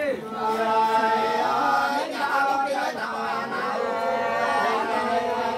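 Women's voices singing sli, the unaccompanied Nùng antiphonal folk song, in long drawn-out notes that bend slowly in pitch.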